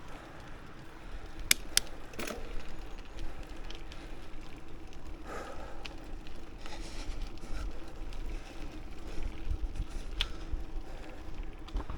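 A bicycle being ridden on a paved path: steady tyre and riding noise with low wind rumble on the microphone. There are a few sharp clicks and rattles, a cluster about two seconds in and another near the end.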